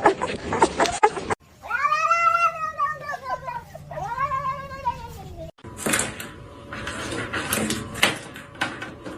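A domestic cat yowling in two long, drawn-out meows, each rising and then falling in pitch. Afterwards come scattered knocks and clatter.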